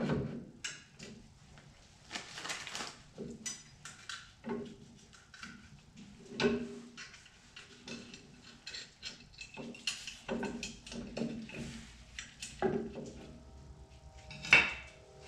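Steel rear drum-brake parts being handled and fitted to the backing plate: scattered metallic clinks, taps and scrapes as a brake shoe and its hardware go on, with one sharp clack near the end.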